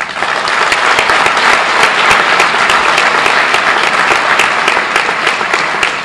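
Audience applauding: many hands clapping in a dense, steady patter that breaks out suddenly.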